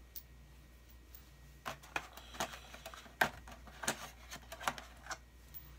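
Irregular light clicks and taps of small airbrush parts being handled and fitted together, about ten over a few seconds, starting a little under two seconds in.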